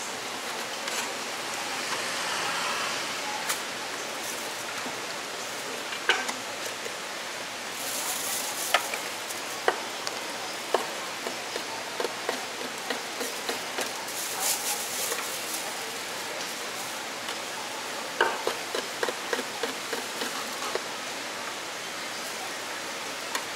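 Cleaver knocking on a wooden cutting board as cooked pork offal and glutinous rice sausage are sliced: scattered single knocks, then a quicker run of them later on, over a steady hiss.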